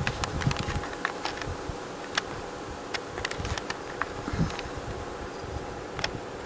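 Bengal kitten scrabbling and pouncing at a wire wand toy on a blanket-covered bed: scattered light clicks and ticks with a few soft thumps, over a faint steady hum.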